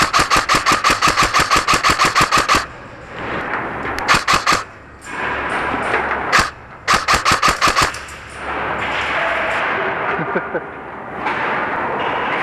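Airsoft electric gun firing on full auto: a rapid rattle of about two and a half seconds, a short burst of a few shots around four seconds in, and another burst of about a second near seven seconds in.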